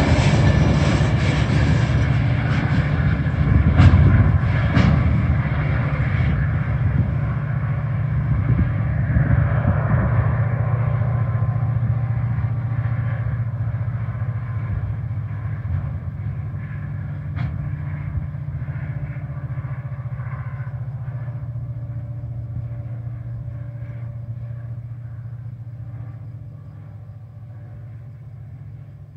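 Ore train of hopper wagons rolling away: a steady low rumble that slowly fades, with a few sharp clacks of wheels on the rails about four to five seconds in.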